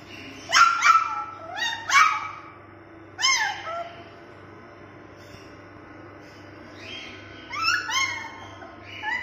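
Puppy whimpering and whining in short, high-pitched cries that rise and then fall: a cluster of them in the first few seconds and more near the end.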